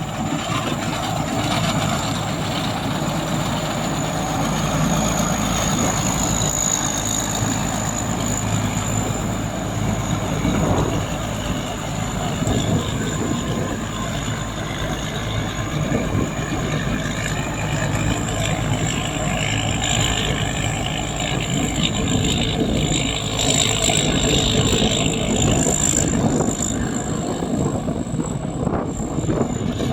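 Diesel engine of a locally built rice combine harvester running steadily, with a constant high thin whine over the engine noise.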